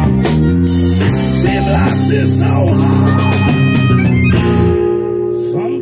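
Live blues band, with electric guitar, electric bass and drum kit, playing a song. The drums stop about five seconds in, leaving a chord ringing.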